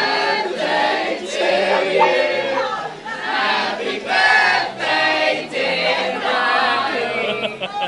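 A group of voices singing a birthday song together in a busy restaurant, with laughing and excited voices mixed in.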